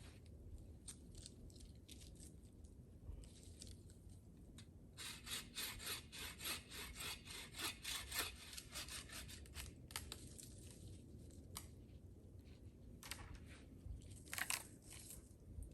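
Hand saw cutting wood: a run of quick, even strokes for a few seconds in the middle, with scattered knocks and rustles around it.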